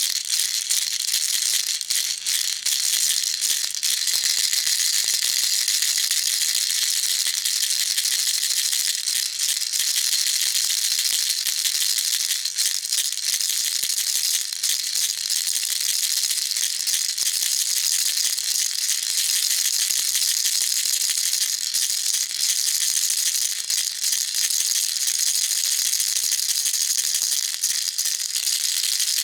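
Baby rattle shaken without a break: a dense, steady, high-pitched rattling.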